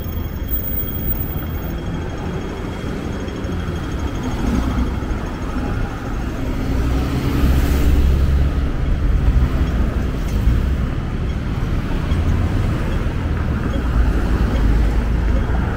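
City street traffic: vehicles passing with a low engine rumble that swells about halfway through and again near the end.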